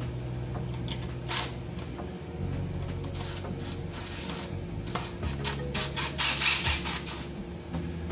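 Cordless drill running at low speed in three short runs, driving the mounting screws of an electrical receptacle into a metal outlet box. Sharp metallic clicks of the screws and the bit mix in.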